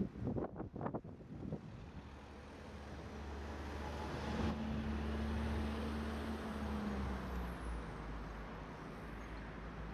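Road traffic: a passing motor vehicle's engine hum swells from about three seconds in, is loudest around five to six seconds and then eases off. A few short buffets are heard in the first second and a half.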